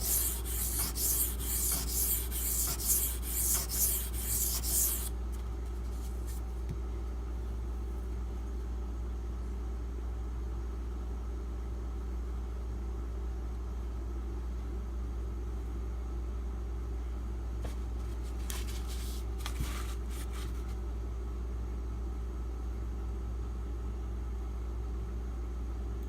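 A steel knife blade stroked back and forth on a coarse water stone, about two scraping strokes a second, to raise a burr. The strokes stop about five seconds in, leaving a steady low hum, and a few brief scrapes come again about two-thirds of the way through.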